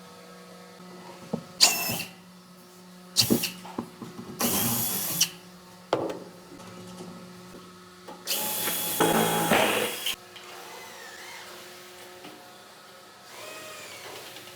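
Handheld power tool running in four short bursts, the longest and loudest about two seconds long near the middle, with a steady whine while it runs. A low hum runs underneath.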